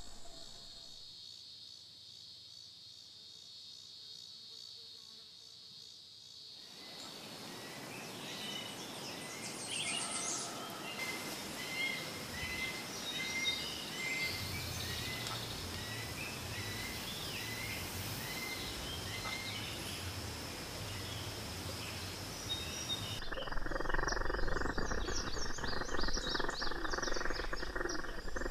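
Meadow insect sounds: first a steady high trill of crickets, then a fuller chorus with short chirps repeating. About three-quarters of the way through, a bumblebee buzzes close by.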